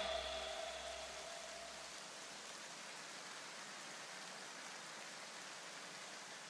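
Faint, steady hiss right after a music track cuts off. The music's last low tones die away in the first two seconds, leaving an even noise that slowly fades.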